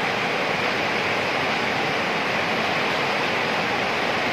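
Whitewater river rapids rushing steadily over rocks.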